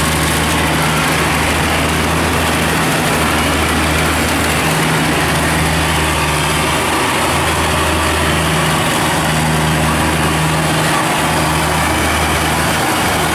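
Kubota DC70 combine harvester running steadily under load while cutting and threshing rice: a constant diesel engine drone with a dense machinery hiss over it.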